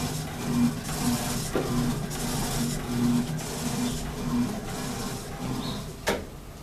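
Electrolux top-loading washing machine agitating its load. The motor hum and the swish of water and cloth swell and fade in a steady back-and-forth rhythm, and there is one sharp knock about six seconds in.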